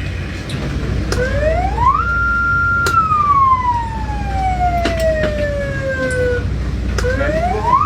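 Ferry's warning siren, a motor-driven siren winding up to a steady high pitch, holding briefly, then falling slowly as it winds down, and winding up again near the end as a second blast. A steady low rumble runs underneath.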